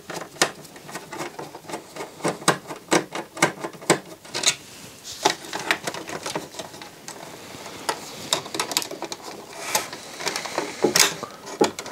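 Hand-tool work on a CD player's circuit board and sheet-metal chassis: a screwdriver and fingers making irregular small clicks, taps and scrapes as screws are undone and connectors pulled during disassembly.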